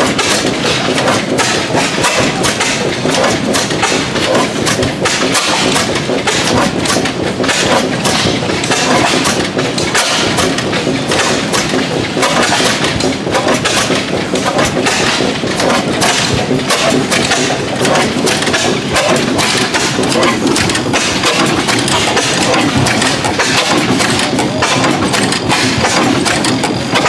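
20 HP Superior single-cylinder oilfield engine running steadily, a continuous stream of exhaust beats and mechanical clatter as it drives a rodline pumpjack by belt.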